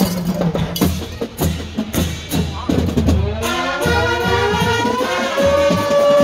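Marching band playing, drums beating under brass. About three seconds in, the trumpets and other brass glide upward together and settle on a long held note.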